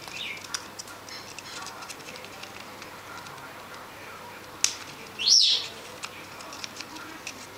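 Senegal parrot working at a hanging wooden foraging toy: scattered light clicks and taps of its beak on the wood and nuts, a brief chirp at the start, a sharp click, then one short loud squawk about five seconds in.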